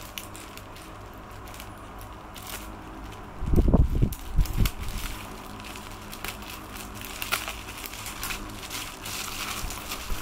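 Bubble wrap and a plastic courier bag crinkling and crackling as a bubble-wrapped box is pulled out and handled, with a few dull low thumps about four seconds in.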